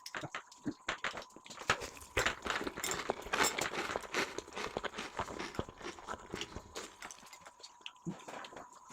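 Close-miked eating: chewing with rapid, irregular mouth clicks and smacks.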